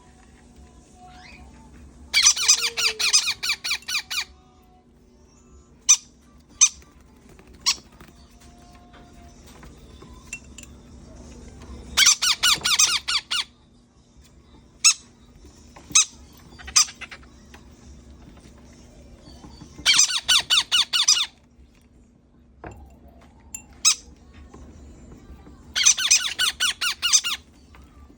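Baby parrot begging calls at feeding: four bursts of rapid, high, squeaky chirps, each lasting a second or two, with single short chirps in between.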